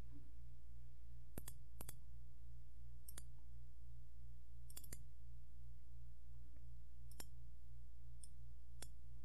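Computer mouse buttons clicking: scattered single clicks and one quick double click, over a steady low hum.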